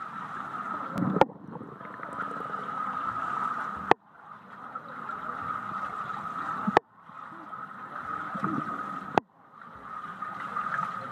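Muffled underwater pool sound picked up by a submerged camera: a steady hum with a sharp click about every three seconds. After each click the sound briefly drops out and then swells back.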